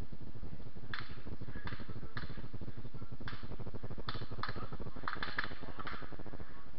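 Distant black-powder gunshots from a firing line, about ten sharp cracks at irregular intervals, several in quick succession around five seconds in, over a steady low rumble.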